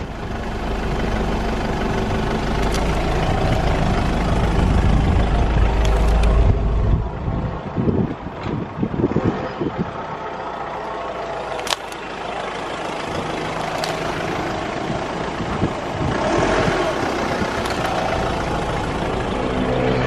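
A car's engine running at low revs as the car creeps slowly forward at walking pace, with a couple of sharp clicks part-way through.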